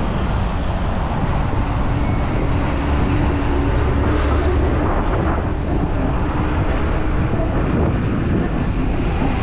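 Road traffic noise with wind rumbling on the microphone, and a steady low hum held for several seconds.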